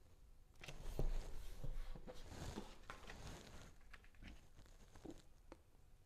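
Stiff cardstock wall cards handled and pressed onto a painted wall with tape: papery rustling and scraping with a few sharp clicks, mostly in the first half, then a few light taps.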